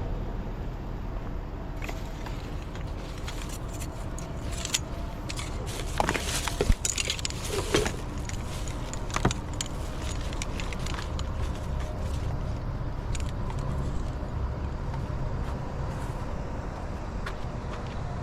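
Truck driving, a steady low rumble of engine and road noise, with a run of clicks and rattles around the middle.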